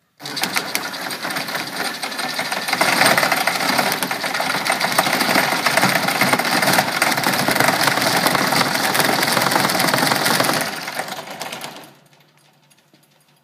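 Electric drill running and cranking a homemade shake table: the drill motor and a fast, continuous rattle of the spring-mounted wooden top and its steel drive arm. It gets louder about three seconds in, then winds down and stops about a second and a half before the end.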